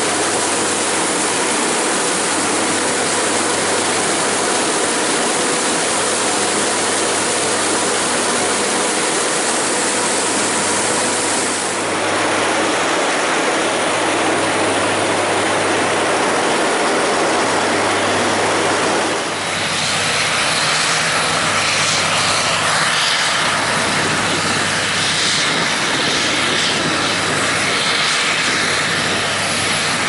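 Claas Jaguar 980 forage harvester running while it chops corn for silage: a loud, steady machine noise with a faint high whine, changing abruptly twice, about twelve and twenty seconds in.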